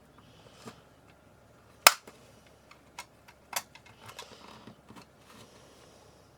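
Sharp plastic clicks and snaps as the clipped-together casing of an LED camping light is worked apart by hand: one loud snap about two seconds in, two more a second or so later, and a few fainter ticks between.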